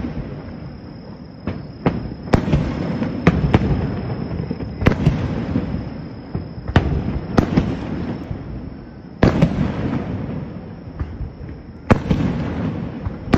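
Aerial fireworks shells bursting in a display: about ten sharp bangs at uneven intervals, some in quick pairs, each trailing off into a long rumbling echo.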